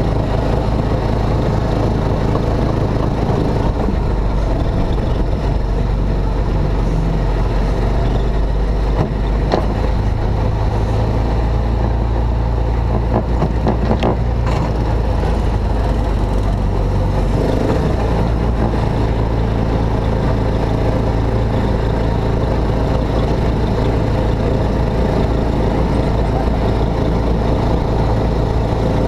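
Amusement-park ride car's engine running steadily as the car drives along its track, a constant low drone. A few brief clicks or rattles come through near the middle.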